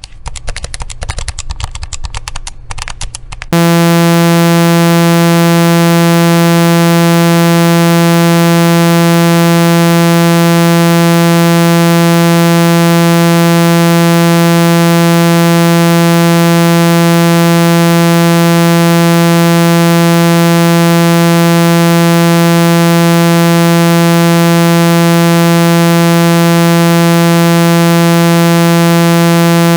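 A burst of rapid crackling clicks, then about three and a half seconds in a loud, steady, low buzzing tone near 165 Hz, rich in overtones and held unchanged: a speaker-cleaning tone meant to vibrate an iPhone XR speaker mesh and shake out trapped water and dust.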